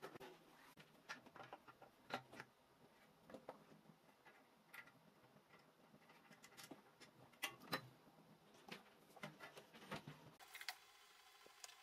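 Faint, irregular clicks and light taps of small parts being handled on a board: a small DC motor, its wires and a plastic fan blade.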